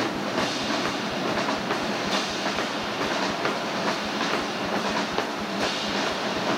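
Marching band drumline playing: snare drums in rapid, densely packed strokes over bass drum hits, keeping up a steady rhythm without a break.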